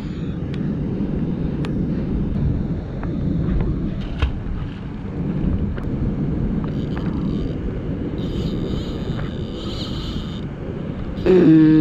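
Wind buffeting the microphone: a steady, fluctuating low rumble with a few faint clicks. Near the end comes a loud, drawn-out vocal exclamation.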